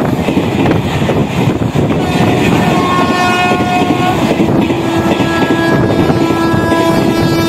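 Express train's LHB passenger coaches rushing past close by at high speed: a loud, continuous rush of wheels on rail. From about two seconds in, several steady high-pitched tones at different pitches ring out over it.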